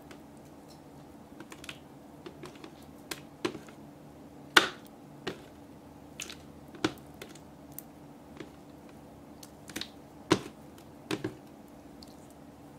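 Slime being stretched and squeezed between the hands, giving irregular sharp clicks and pops as it is worked, the loudest about four and a half seconds in, over a faint steady hum.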